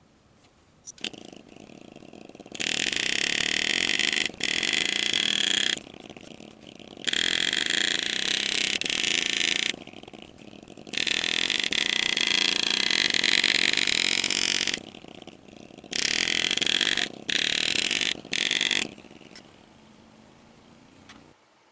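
A buzzing power tool runs in seven bursts of about half a second to four seconds each, over a low steady hum that starts about a second in and stops near the end.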